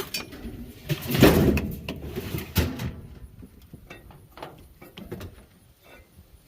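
Knocks, clicks and scraping as a refrigerator's parts are handled and pulled apart for scrap. A sharp click opens it, and the loudest scraping rush comes about a second in, with a second one shortly after.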